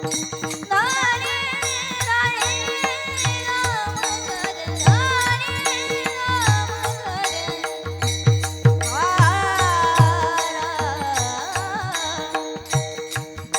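Devotional kirtan music: a high melodic line sliding between long held notes, in three long phrases, over a steady drone. Drum strokes and small cymbal clicks keep the rhythm underneath.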